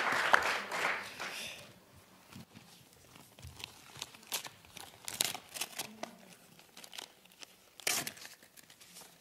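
Audience applause dying away in the first second and a half, then quiet paper rustling and crinkling from the presenters' papers at the lectern, with a louder rustle about eight seconds in.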